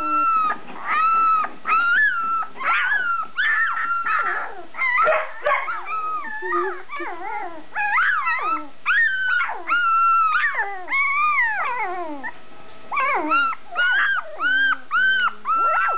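Several two-and-a-half-week-old puppies whining and squealing: a near-continuous run of short, high cries that rise and fall, often two or more at once.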